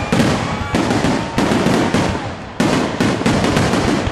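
Aerial fireworks finale: a rapid string of sharp bangs and crackles from shells bursting overhead. It eases off about two seconds in, then another dense volley breaks out.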